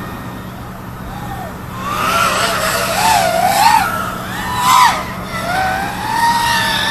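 iFlight Archer X5 five-inch FPV quadcopter flying, its brushless motors and propellers whining and sliding up and down in pitch with the throttle. It gets louder about two seconds in, swelling several times as it punches out and passes.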